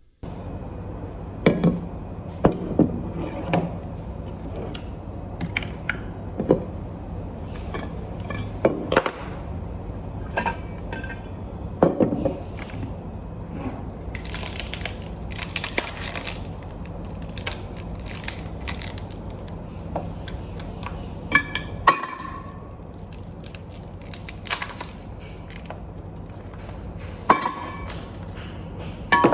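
Scattered sharp clinks and knocks over a steady low hum, with a short burst of hiss about halfway through.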